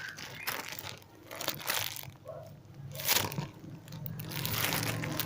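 Crinkling plastic packaging around a squishy toy being handled, in several short crackly bursts.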